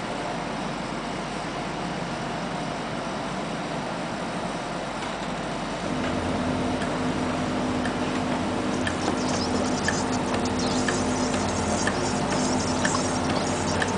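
Automatic printing-plate washing machine running with a steady mechanical hiss. About six seconds in it gets louder with a low hum and a steady tone as its rollers draw the plate in, and from about nine seconds a higher hiss joins with light ticks about once a second.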